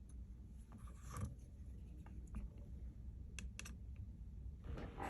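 Faint clicks and short scrapes of a small precision screwdriver working the tiny screws out of the metal plate inside an iPhone 15 Pro, with a brief scrape about a second in and a longer one near the end.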